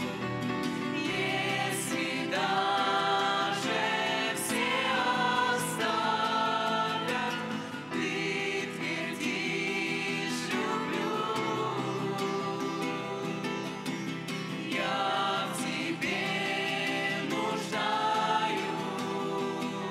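Music: a choir singing a gospel-style Christian song.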